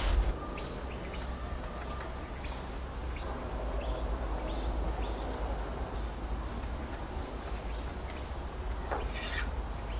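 Small birds chirping now and then over a steady low outdoor hum, with a brief cut of a cleaver on a wooden chopping board near the end.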